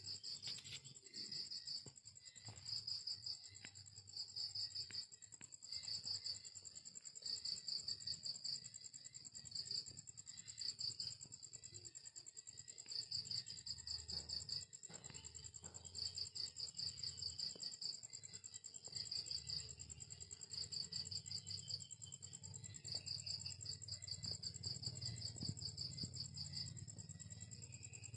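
Night insects calling: a steady high-pitched buzz throughout, with rapid pulsed chirps in short bursts every second or two.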